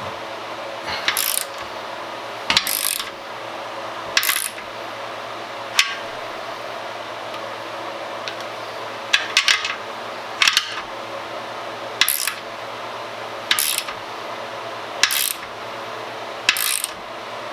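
Hand ratchet wrench clicking in short strokes about every second and a half, tightening a nut that draws a splined axle stud into a Ford 9-inch axle housing flange.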